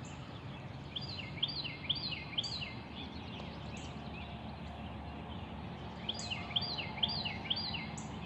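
A small bird singing two runs of quick, repeated high chirps, one starting about a second in and another after about six seconds, over steady background noise.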